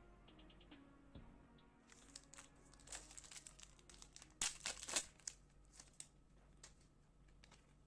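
Trading card pack wrapper crinkling and tearing open in a string of sharp crackles, loudest a little past the middle.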